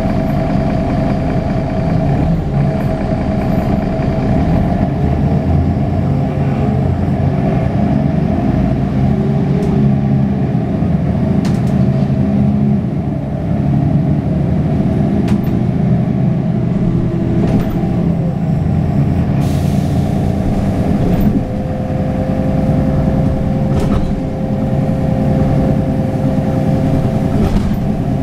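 Mercedes-Benz Citaro O530 bus's OM906hLA six-cylinder turbo diesel with ZF 5HP502 automatic gearbox running under way, heard from inside the cabin; the engine note rises and falls as the bus pulls along. A brief hiss about twenty seconds in.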